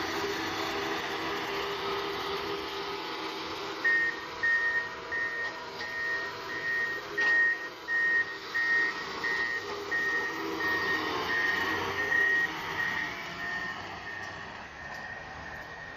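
Motor grader's engine running steadily; about four seconds in its reversing alarm starts beeping at one fixed pitch, roughly one and a half beeps a second, and stops after about nine seconds. The engine sound grows fainter near the end.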